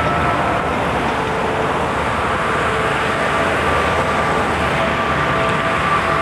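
Steady vehicle noise, a continuous rumble and hiss with a few faint held tones drifting in and out.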